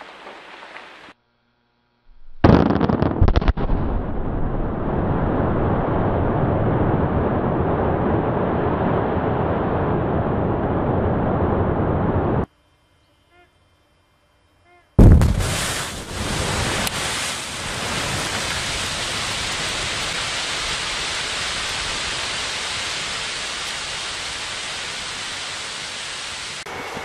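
Two quarry rock blasts: a sudden bang about two and a half seconds in, with a few sharp cracks after it, then a second bang about fifteen seconds in. Each bang is followed by a long, even rumble of shattered rock and debris coming down the face.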